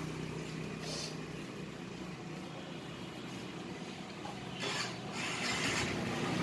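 Brief rubbing and scraping sounds of engine parts being handled, about a second in and again near the end, over a steady background hum.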